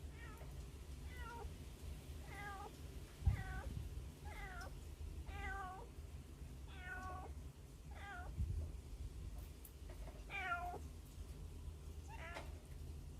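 Hungry kittens crying: about a dozen short mews, each falling in pitch, roughly one a second. A dull thump about three seconds in.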